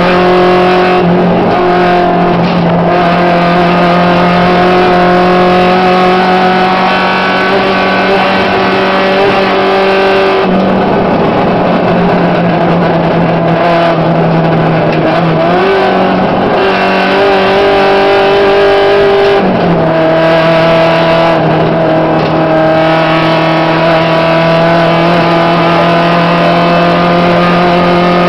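Volkswagen Gol rally car's engine heard from inside the cabin, running hard at high revs on a gravel stage. Its pitch steps down and climbs again several times as the driver changes gear.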